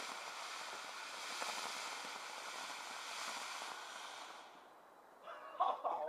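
Fountain firework hissing steadily as it sprays sparks, dying away about four and a half seconds in. A brief, louder burst of voices near the end.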